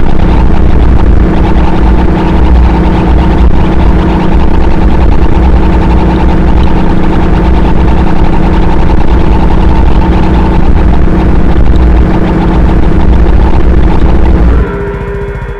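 Harsh noise music: a loud, dense wall of distorted noise over a steady deep rumble, with a few held tones. It drops off sharply near the end.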